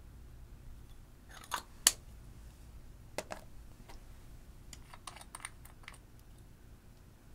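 Sharp plastic clicks and taps of makeup containers being handled: a louder click a little under two seconds in, a pair around three seconds in, then a run of small clicks as the cap is twisted off a small pot of loose glitter.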